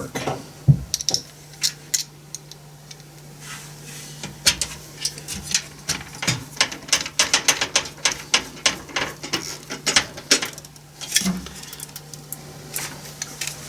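Screwdriver driving a screw into the graphics card's mounting bracket in a metal PC case: small metal clicks and scrapes, a few at first, then a quick irregular run of them in the middle.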